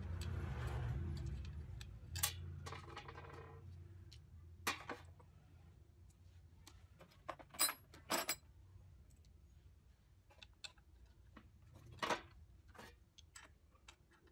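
Scattered sharp metallic clicks and clinks of hand tools and small metal parts being handled while a small gear-motor assembly is put together by hand, with a low rumble under the first few seconds. The loudest clicks come about 2, 5, 8 (two close together) and 12 seconds in.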